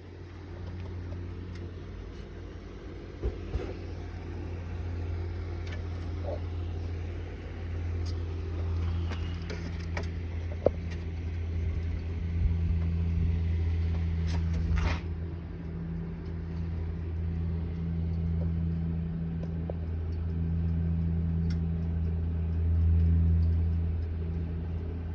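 1994 Pontiac Bonneville's V6 engine idling steadily, a low even hum, with a few faint clicks and knocks over it.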